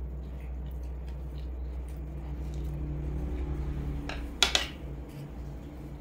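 Close-up chewing of a mouthful of black bean noodles, with faint wet clicks, over a steady low hum. About four and a half seconds in, wooden chopsticks clatter down onto a plate twice in quick succession.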